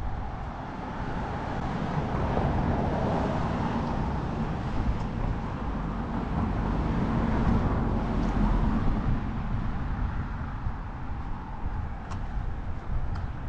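Road traffic, with a car passing: its tyre and engine noise builds to a peak past the middle and then fades.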